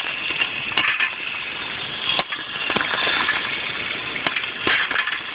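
Popcorn kernels popping inside a popcorn popper with a clear dome lid: frequent sharp pops over a steady rushing noise.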